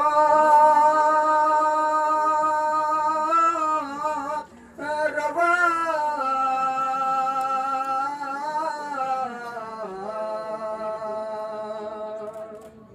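A man singing a devotional poem unaccompanied, drawing out a few long held notes with a slightly wavering pitch. There is a short break about four seconds in, and the pitch falls around ten seconds in.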